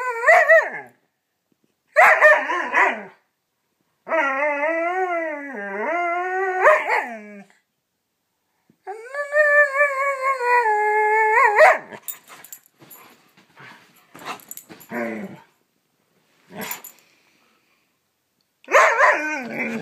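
Young Siberian husky 'talking': four drawn-out, howl-like calls whose pitch bends up and down, then a run of short yips and barks, with a loud call near the end.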